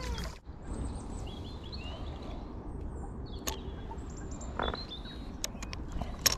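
Songbirds chirping and singing in short high phrases over a steady low rumble, with a few sharp clicks in the second half.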